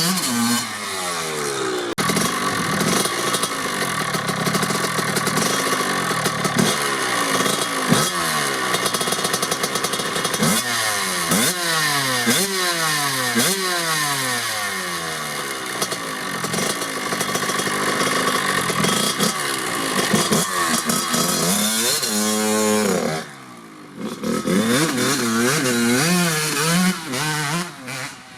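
1997 Kawasaki KX80's single-cylinder two-stroke engine, through a DEP silencer, revving up and falling back over and over. It drops to a much quieter level about 23 seconds in, then revs again briefly.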